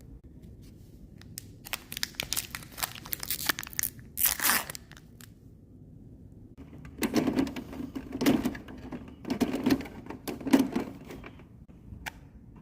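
Packaging of new ink cartridges being crinkled and torn open, in two spells of rustling with small clicks: about two to five seconds in, and again from about seven to eleven seconds.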